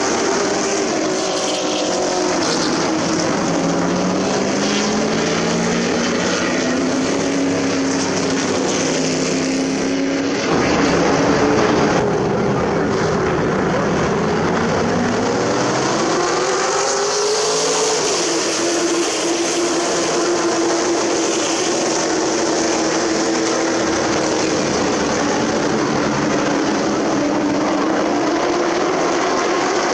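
Race trucks' engines running hard in a race, the engine pitch sliding down and then climbing again as the trucks lift and accelerate, with a slightly louder pass a little before halfway.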